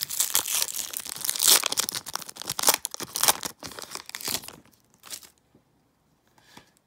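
A Pokémon trading-card booster pack's foil wrapper being torn open and crinkled: a dense run of tearing and rustling for about four and a half seconds, one more short crinkle about five seconds in, then it goes quiet.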